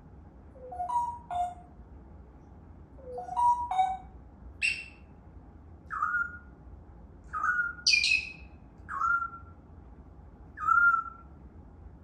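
African grey parrot whistling short notes: first two rising two-note phrases, then a run of single higher notes that each slide down in pitch, one every second or so.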